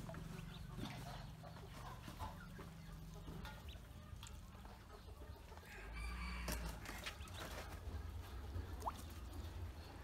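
Ducklings peeping while they paddle in a metal basin of water. The calling grows louder about six seconds in.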